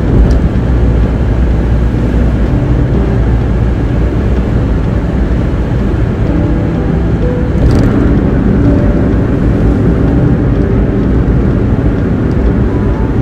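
Steady road and engine noise inside a car cruising at highway speed, strongest in the low rumble of tyres on asphalt. A short rush of noise about eight seconds in.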